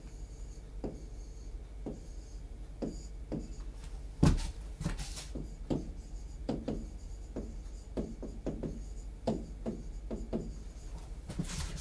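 Stylus writing on an interactive display board: a string of short, irregular taps and scratches, with one louder knock about four seconds in.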